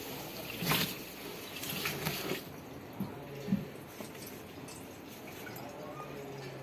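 Wet laundry lifted out of a semi-automatic washing machine's wash tub and put piece by piece into its spin-dryer tub: water dripping and squelching from the soaked cloth, with a few short handling noises about a second and two seconds in.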